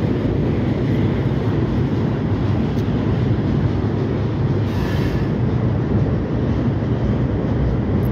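Freight train of tank cars rolling over a steel railroad bridge: a steady low rumble that keeps an even level throughout.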